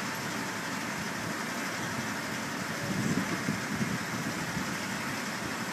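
Truck-mounted crane's engine idling steadily, with a brief louder low rumble about three seconds in.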